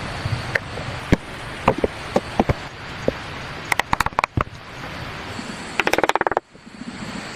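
Scattered sharp knocks and snaps over a steady background hiss, with a cluster of them about four seconds in. Near the end comes a quick rattling run of clicks that cuts off suddenly.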